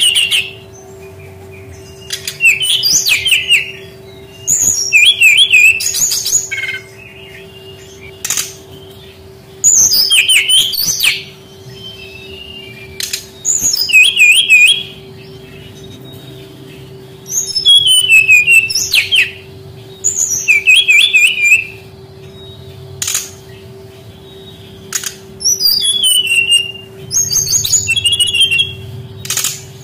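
Brown-chested jungle flycatcher (sikatan rimba dada coklat) singing: short, fast warbling song phrases of high notes, repeated every two to four seconds, with a few sharp clicks between phrases and a faint steady low hum underneath.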